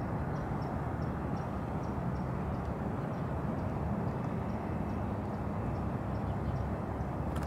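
Steady low outdoor rumble, like distant traffic, with faint high ticks scattered through it.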